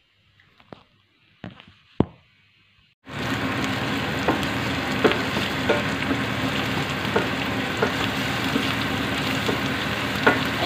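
A few sharp knocks in the first two seconds, then, starting suddenly about three seconds in, chopped onion and garlic sizzling in oil in a stainless steel pan, with the small taps and scrapes of a wooden spatula stirring them.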